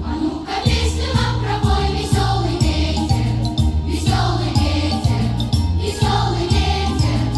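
Music: a brisk choral song arrangement with a steady, regularly stepping bass and light bell-like tinkles.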